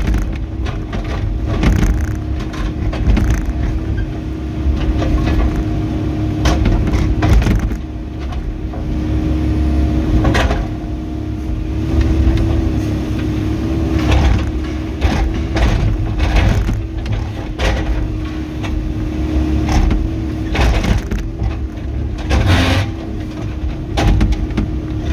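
Volvo ECR88D mini excavator's diesel engine running at a steady pitch, with repeated scrapes and cracks as the bucket digs into the ground, the sharpest about ten seconds in and again near the end.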